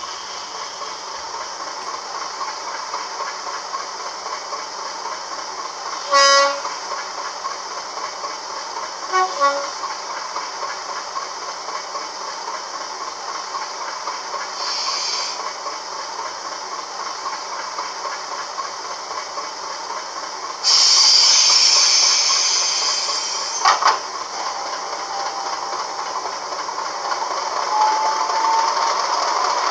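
DCC sound decoder in a Bachmann model of diesel locomotive 10001, heard through the model's small speaker: a steady idling diesel engine. A short horn blast comes about six seconds in and two brief horn toots around nine seconds. A hiss of air comes near fifteen seconds, and a louder hiss lasts about three seconds from about twenty-one seconds; near the end the engine note rises.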